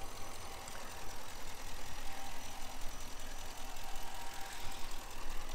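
Ram 1500's 5.7-litre HEMI V8 idling steadily with the hood open, a constant low rumble.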